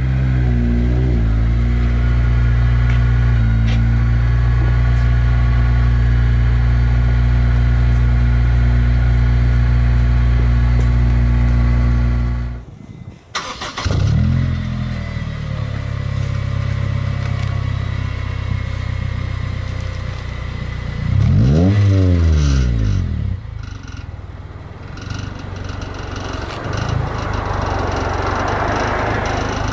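2002 Acura RSX Type S's 2.0-litre four-cylinder running steadily through a Borla cat-back exhaust. About 21 seconds in it is blipped once, revs rising and falling quickly, and another blip begins right at the end.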